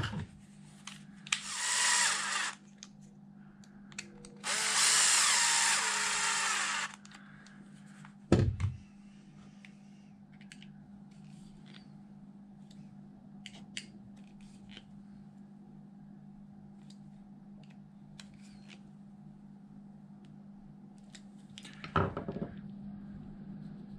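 Cordless drill-driver running the tapered screws into the plastic cush drive cap in two short runs, the second one longer. Then a single knock, and a steady low hum underneath.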